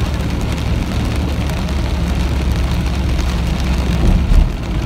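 Car driving through heavy rain, heard from inside the cabin: a steady low rumble of road and tyre noise with a rain hiss on top. A louder low thump comes about four seconds in.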